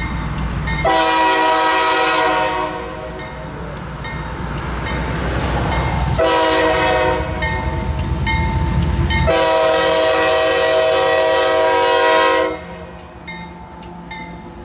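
A GE AC6000CW freight locomotive's multi-chime air horn sounding three loud blasts, the last the longest and cutting off about twelve seconds in, over the low rumble of the diesel engine as the intermodal train approaches and passes.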